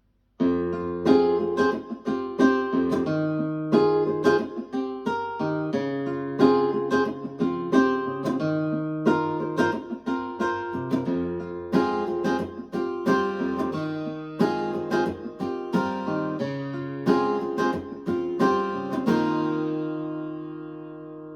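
Guitar music with plucked notes and chords, played back through a 1995 Mission 761i loudspeaker. It starts about half a second in after a brief silence, and a last chord fades away near the end.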